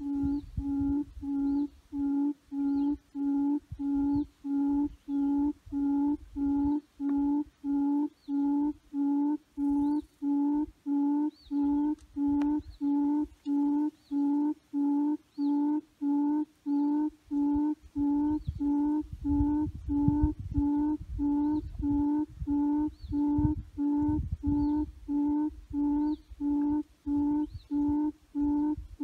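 Recorded lure call played through a loudspeaker for hunting: the same low hooting note repeated with even spacing, about three every two seconds, with a faint higher chirp in the loop.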